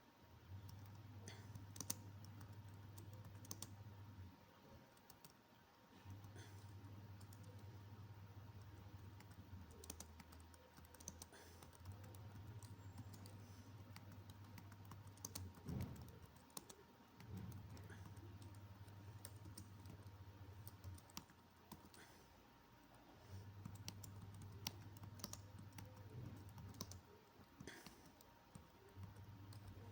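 Computer keyboard typing: scattered, irregular keystroke clicks. Under them is a low hum that switches on and off in stretches of a few seconds.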